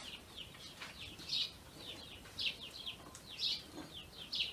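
Small songbirds chirping: clusters of short, high, falling notes about once a second.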